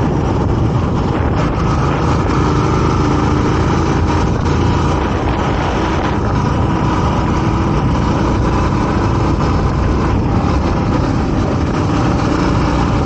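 Motorcycle engine running at a steady cruising speed while riding, mixed with wind and road noise.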